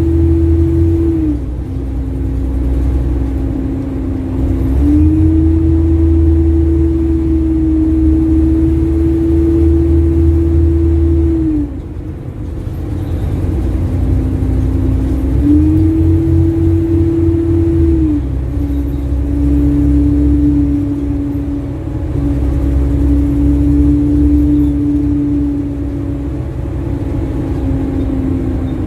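Heard from inside, a single-decker-or-double-decker city bus's diesel engine and driveline under way, with a failed exhaust manifold, which is the cause of its ticking noise. The heavy low rumble swells under load and eases off several times, and a steady whine steps up and down in pitch with it.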